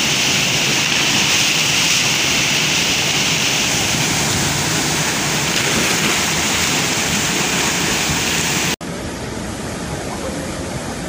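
Waterfall crashing into its plunge pool: a steady, loud rush of water. Near the end it breaks off for an instant at an edit and carries on a little quieter.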